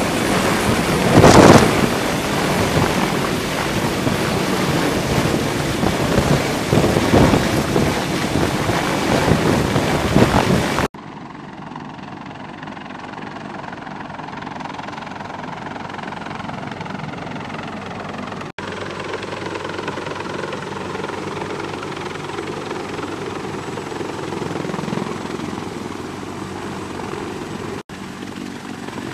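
Sikorsky CH-53E Super Stallion heavy-lift helicopter. For the first part, rotor downwash buffets the microphone close beneath it as a loud, rough rush, with a sharp gust about a second and a half in. After a cut about eleven seconds in, the rotor and engine noise of the hovering helicopter is steadier and quieter.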